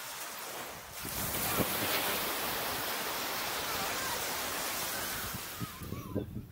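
Small waves breaking and washing up a sandy beach: an even hiss of surf that swells about a second in, holds, and fades near the end, with some wind on the microphone.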